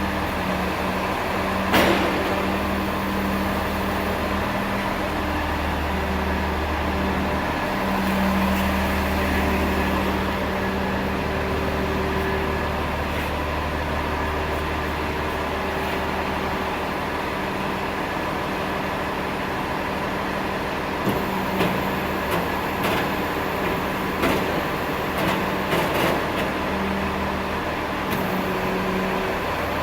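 Truck engine running steadily with a low hum while the truck-mounted crane boom hoists a hydraulic cylinder. A sharp click comes about two seconds in, and light knocks and clanks follow in the second half.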